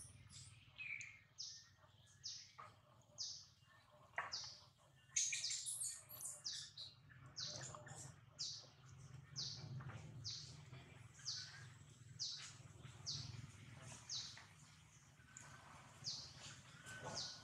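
A bird repeating a short, high, falling chirp about once a second, over a low steady hum.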